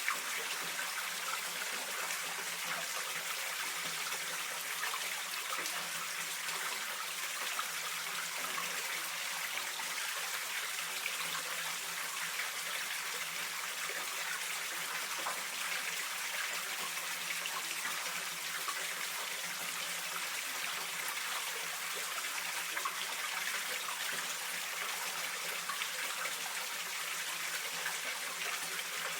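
Mountain stream flowing and trickling steadily.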